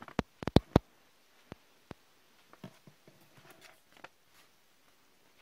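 Paper cards being picked up and handled: a quick run of sharp taps and clicks in the first second, then a few softer taps and paper rustles, dying away after about four seconds.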